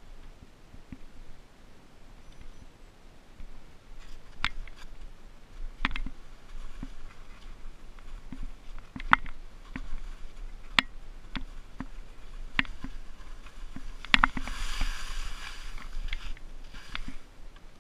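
Skis sliding and scraping over soft, unfrozen snow during a downhill run, with scattered sharp clicks and knocks, and a longer rushing hiss about fourteen seconds in.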